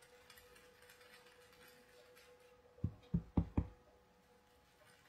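An ink-blending tool tapped down four times in quick succession, soft knocks about a quarter second apart, a little past halfway, over a faint steady hum.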